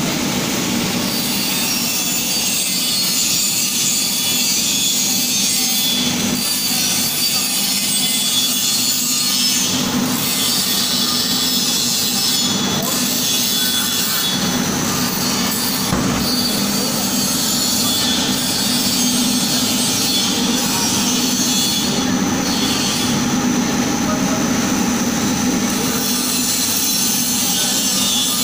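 Compact blown film plant running: a loud, steady machine noise with a constant low hum and a high hiss.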